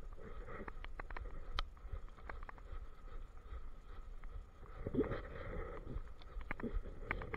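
Handling noise from an action camera strapped to a walking German shepherd: rustling and rubbing of the mount against fur and harness, with scattered sharp clicks and irregular thumps as the dog moves.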